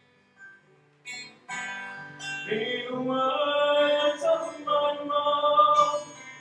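Acoustic guitar strummed with a man singing along. A near-silent pause in the first second, then the guitar comes in and the voice joins about two and a half seconds in.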